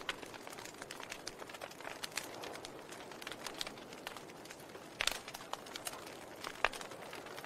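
Wood fire in a fireplace crackling over a soft steady hiss, with scattered pops; two louder pops come about five seconds in and near the end.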